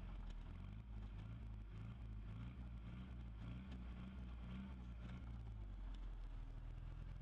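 Land Rover Discovery 300Tdi's 2.5-litre four-cylinder turbodiesel engine revving under load as the 4x4 tries to climb out of a hole with its axles crossed. The engine note rises and falls through the middle and settles near the end.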